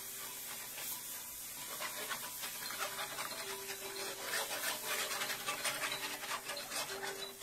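A whisk scraping and stirring against a skillet as milk is whisked into a browned flour roux, the start of a milk sauce. It is a quick, repeated scraping that becomes denser about two seconds in.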